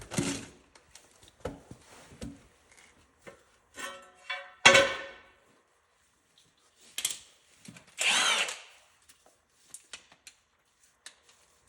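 Hand tools working the 18 mm nut onto a car's outer tie rod end stud: scattered metal clicks and clanks, with two brief louder bursts about 5 and 8 seconds in.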